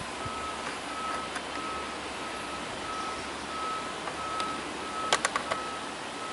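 A vehicle's reversing alarm beeping steadily at one pitch, about three beeps every two seconds, over a steady background hiss. A quick cluster of sharp clicks comes about five seconds in.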